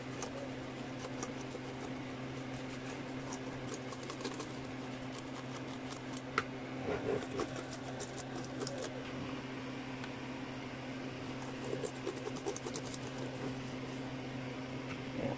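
Small brush scratching and clicking over the inside of a laptop, sweeping out dust, over a steady low hum.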